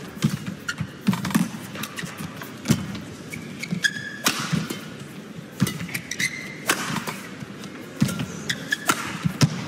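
Badminton rally: sharp racket strikes on the shuttlecock at irregular intervals, with brief squeaks of court shoes on the floor about four and six seconds in.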